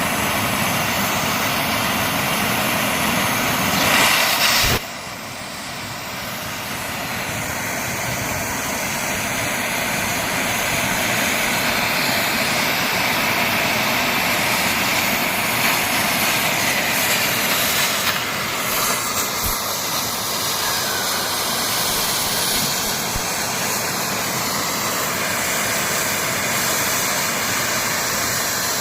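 Oxy-fuel cutting torch jet hissing steadily. It grows louder about four seconds in, drops sharply, then builds back up gradually.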